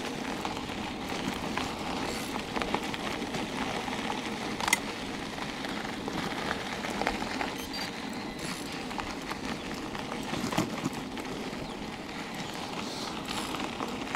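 Steady crackling rolling noise of an e-bike ride heard on a clip-on microphone: tyres on the path, with wind and clothing rustle. One sharp click about five seconds in, and a few fainter ones.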